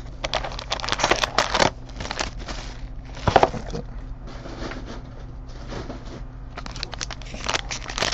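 Clear plastic shrink wrap crinkling and crackling as it is torn off a trading-card box, with irregular sharp crackles and light handling of the cardboard box and card pack.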